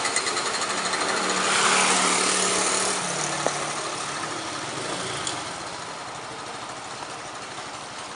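Diesel engine of construction machinery running with a dense mechanical clatter, its pitch dropping slightly about three seconds in and the sound growing fainter.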